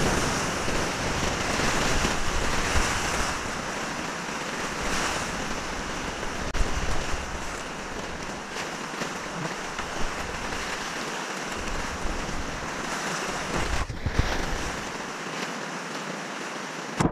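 Whitewater rushing and splashing around a kayak, heard from right at water level, with wind buffeting the microphone. It is loudest in the first few seconds, then eases to a steadier rush as the water calms.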